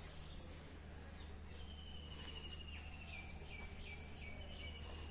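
Birds chirping: many quick falling chirps and a long, thin, even trill heard twice, over a low steady hum.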